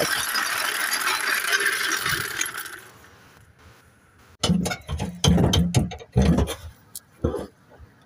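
Metal tool handling: a steady metallic rattle that fades out about three seconds in, then a run of clunks and knocks as a floor jack and its steel handle are moved.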